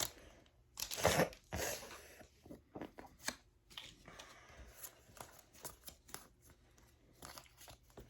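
Foil booster pack wrapper being torn open and crinkled, the loudest rip about a second in, followed by soft rustling and light clicks of cards being handled.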